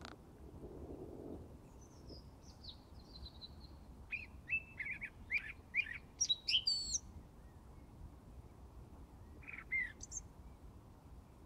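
A songbird singing: faint high thin notes about two seconds in, then a loud varied phrase of whistled notes about four seconds in, and a short phrase near the end.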